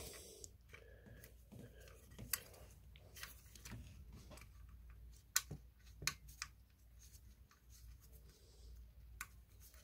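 Faint, scattered metallic clicks and taps of bolts and a power steering pump bracket being handled and fitted in a car engine bay, the sharpest a little after five seconds and near six seconds.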